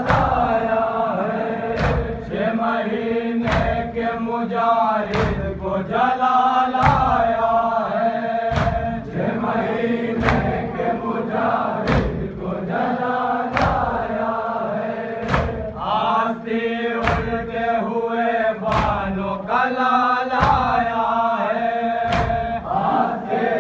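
A group of men chanting a noha lament in unison, with sharp rhythmic strikes about one every 0.8 s, typical of matam chest-beating keeping time with the chant.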